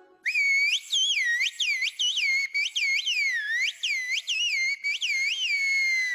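A person whistling in Turkish whistled language (kuş dili, 'bird language'): one long, high whistled phrase of rapid rising and falling pitch swoops with brief breaks. It opens on a steady held note and ends on a long, slowly falling one.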